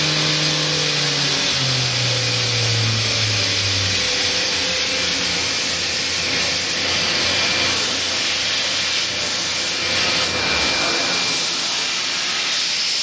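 Fadal 4020HT vertical machining center's spindle running on a dry run without cutting, a steady machine hum over constant hiss. The hum steps down in pitch about a second in and again around four seconds, and its low tone drops out near the end.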